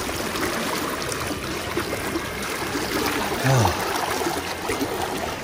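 Swift, shallow river current rushing steadily around a wader's legs. About three and a half seconds in comes a short, low voice sound that falls in pitch.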